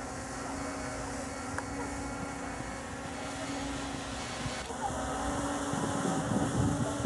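Walkera Scout X4 quadcopter's rotors buzzing steadily overhead as it climbs and hovers, a droning hum whose pitch shifts slightly about two-thirds of the way in.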